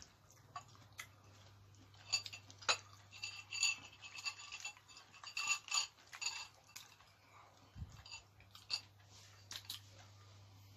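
Eating at the table: chewing on beef foot bone and marrow mixed with a run of small clicks and clinks of a metal spoon against the bowl and plate, busiest in the middle, over a low steady hum.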